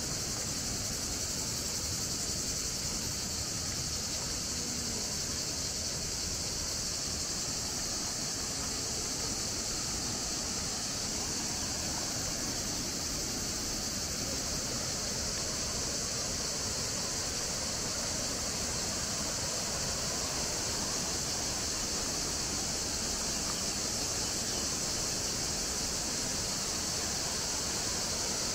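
A steady, high-pitched buzzing chorus of insects over the continuous rush of flowing river water.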